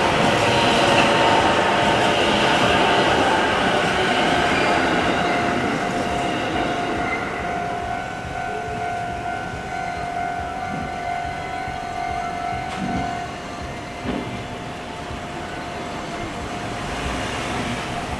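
JR Nambu Line commuter train running past over the level crossing, its noise fading steadily as it moves away. A steady high tone runs beneath it, strongest around the middle.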